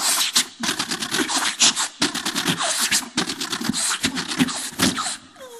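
A beatboxer making battle sound effects with his mouth: rapid bursts of imitated gunfire and mortar blasts, ending with a falling whistle.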